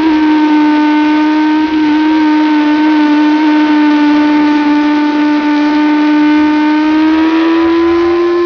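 Race-track motorcycle engine heard from the bike's own onboard camera, held at a near-steady pitch through a long corner. The pitch dips slightly early and climbs a little near the end as the revs rise.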